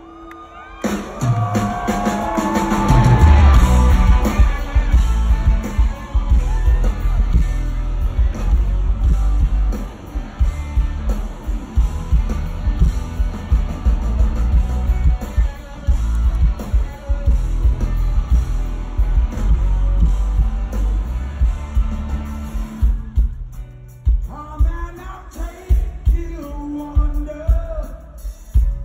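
Rock band playing live at full volume, with heavy drums, guitars and a sung vocal line. About 23 seconds in, the band drops back and the singing comes to the fore.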